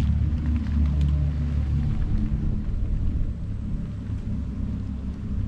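2022 Audi e-tron GT electric car rolling slowly past at low speed: a deep hum with several steady low tones and tyre rumble, easing off after about two seconds as the car pulls up just ahead.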